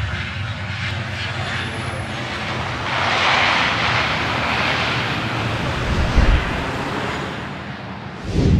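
Airliner flyby sound effect: a steady low engine drone with a rushing noise that swells and fades a few seconds in, then a low thump and a sharp whoosh near the end.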